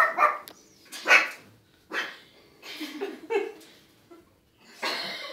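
Black pug puppy barking with a pacifier in its mouth: a handful of short barks, roughly a second apart.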